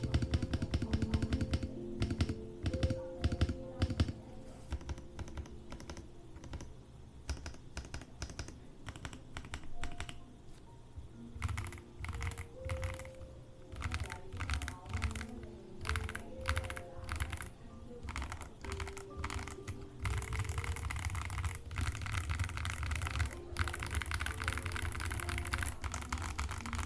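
Typing on a GK75 custom mechanical keyboard with Leobog grey ash wood linear switches and Cherry-profile PBT keycaps. There are fast runs of keystrokes at the start and again in the last several seconds, with slower, more spaced presses in between.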